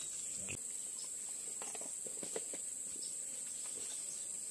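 Steady high-pitched insect buzzing from the surrounding forest, with a few faint scattered clicks.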